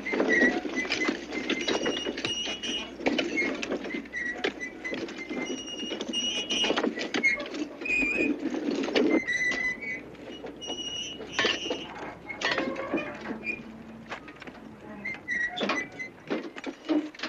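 Clatter of hand mining work: metal picks and shovels striking and scraping rock, with many sharp clinks and short metallic rings.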